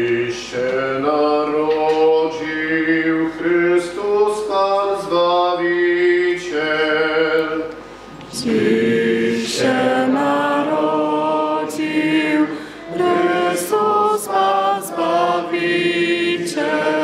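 Liturgical chant sung by voices in slow, held notes that step up and down, with a brief pause about eight seconds in.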